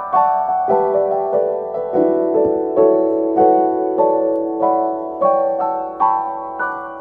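Background piano music: a gentle melody of single notes, with a low note held under it from about two seconds in.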